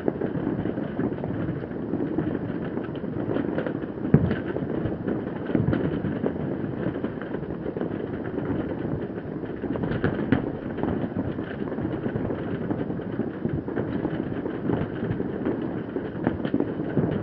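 Many fireworks and firecrackers going off at once across a city, heard from afar as a continuous crackling rumble of overlapping bangs. A sharper, louder bang stands out about four seconds in, and another about ten seconds in.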